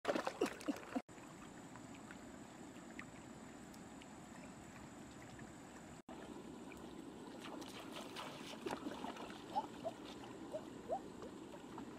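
Water running steadily, with a cluster of sharp clicks in the first second and a few short rising chirps after about eight seconds.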